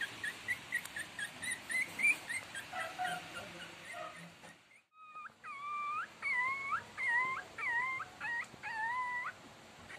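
Shih Tzu puppies about three weeks old whimpering: a quick run of short, high squeaks for the first four seconds. After a brief break, about six longer whining cries follow, each dipping and then rising in pitch.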